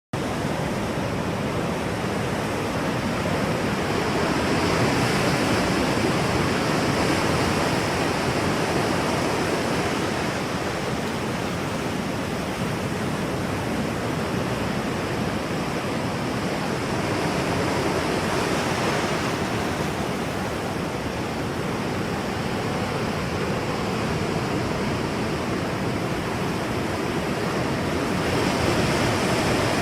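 Ocean waves rolling in, a continuous wash of surf that swells gently three times, about every twelve seconds.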